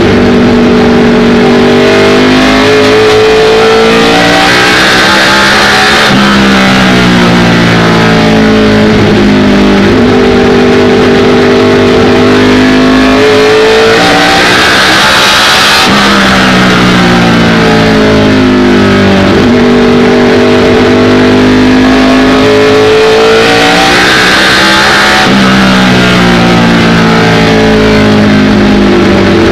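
ARCA stock car's V8 engine at racing speed, heard from inside the cockpit and loud throughout. Its pitch climbs under full throttle, holds, then drops as the car lifts for the turns, in repeating cycles around the lap.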